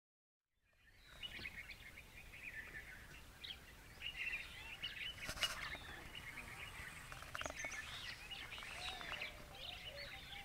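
Several wild birds chirping and calling over each other, fading in under a second in after silence. A single sharp click comes about five seconds in.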